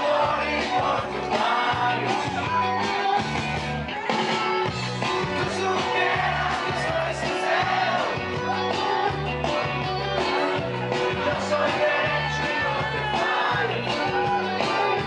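Dance music with singing over a steady, repeating bass beat.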